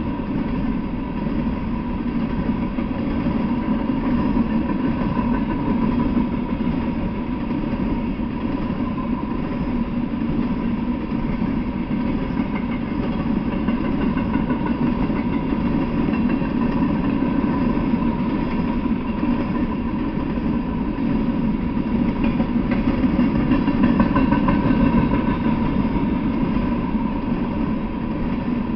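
Freight train of open-top hopper cars rolling past, a steady rumble of steel wheels on rail with a faint steady whine through it, swelling a little about three-quarters of the way in.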